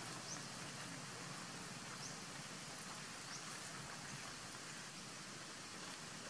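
Steady outdoor forest ambience: an even hiss, with a small bird's short, high, rising chirps repeating every second or two.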